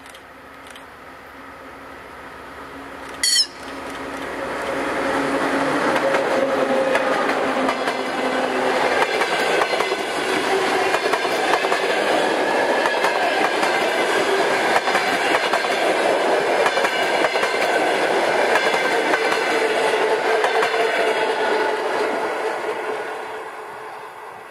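TEP70 diesel locomotive's engine running with a steady note as it approaches and passes, followed by a long rake of passenger coaches whose wheels run loudly over the rails, fading away near the end. A short, sharp, loud burst about three seconds in.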